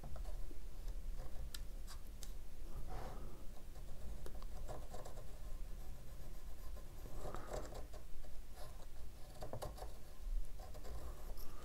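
Pencil scratching softly as it traces a curve along a paper template held against wooden planking, with scattered light taps and rustles of the paper.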